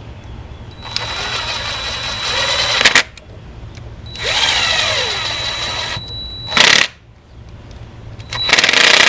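Power driver running in three bursts of a few seconds each, with a steady whine, driving in the bolts of the engine's water outlet housing. The first two bursts each end in a brief louder spike.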